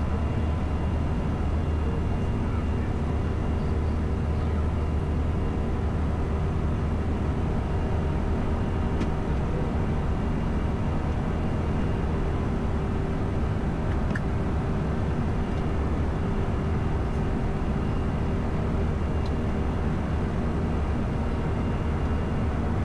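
Steady cockpit noise of an Airbus A320 in flight: a constant rumble of engines and airflow, with a few faint steady whining tones over it.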